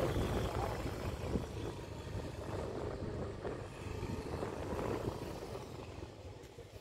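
Low rumble and road noise of a vehicle in motion, heard from on board, fading near the end.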